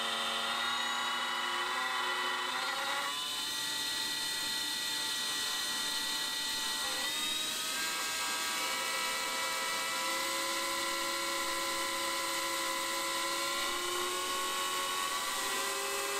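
Small brushless drone motor (about 2300 KV, on a 4-cell battery) spinning a 3-inch propeller fitted with a 3D-printed PLA guard ring. It makes a steady whine of several stacked tones that shifts in pitch a few times as the speed changes.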